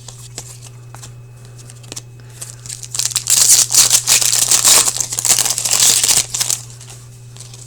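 Foil wrapper of an Upper Deck hockey card pack being torn open and crinkled in the hands. A few light clicks of handling come first, then about three seconds of loud ripping and crinkling starting roughly two and a half seconds in, over a steady low electrical hum.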